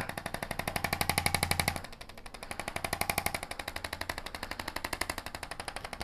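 Handheld electric percussion massager running against the upper back and neck: a rapid, even machine-gun tapping that drops in loudness about two seconds in.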